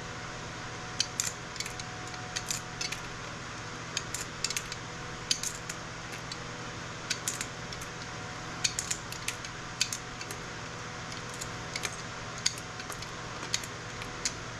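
Irregular small metallic clicks and clinks of a hand tool prying and snapping components off a scrap circuit board, over a steady low hum.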